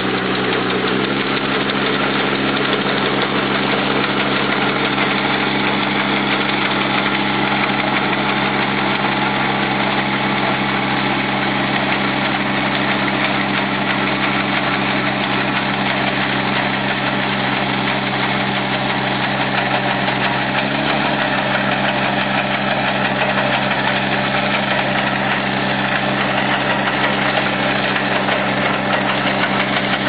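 Small tractor engine running steadily as it pulls a mounted potato digger through the soil, its note wavering briefly about two-thirds of the way through.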